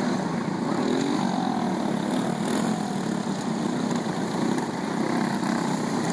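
A pack of small single-cylinder go-kart engines racing together through a turn on a dirt track. Several engine notes overlap, rising and falling in pitch as the karts pass.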